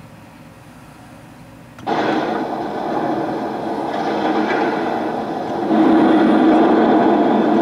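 Lionel AC-9 model steam locomotive's onboard sound system starting up: a sudden hiss of simulated steam about two seconds in, steady, then louder about six seconds in.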